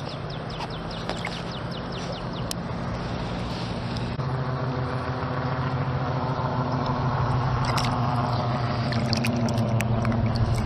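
An engine running with a steady low hum that grows gradually louder, with a few small clicks and taps, mostly in the second half.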